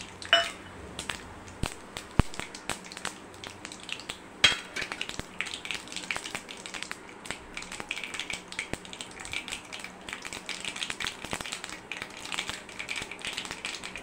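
Mustard seeds, cumin and dried red chillies frying in hot oil in a kadai for a tempering: a few sharp pops at first, then dense, steady crackling and spluttering from about five seconds in.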